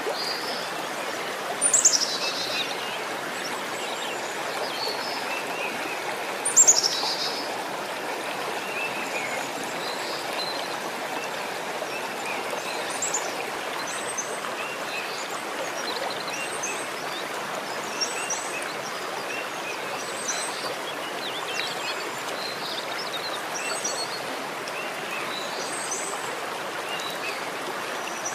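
Steady rush of a stream, with small birds chirping throughout. Twice near the start, a louder high-pitched call falls sharply in pitch.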